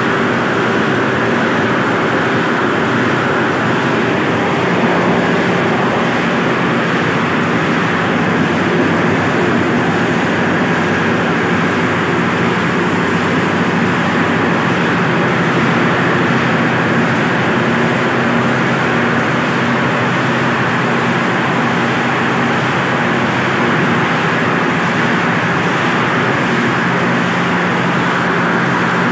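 Soya chunks production machinery running: the extruder and conveyor motors make a steady loud mechanical noise with a low hum.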